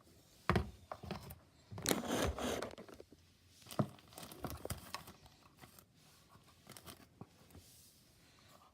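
Runny slime with lotion being mixed by hand: irregular sticky squelching and tearing noises, loudest in the first four seconds and fainter after.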